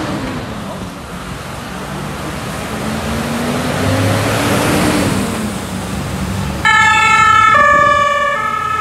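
A fire engine's diesel engine and tyres on a wet road as it pulls out and passes, rising to a peak about four seconds in. About two-thirds of the way through, a German two-tone siren (Martinshorn) starts suddenly and becomes the loudest sound, switching between its two pitches about once a second.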